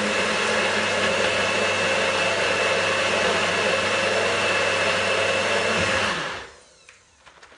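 Nutribullet blender motor running steadily, blending a fruit and yogurt smoothie, then stopping about six seconds in.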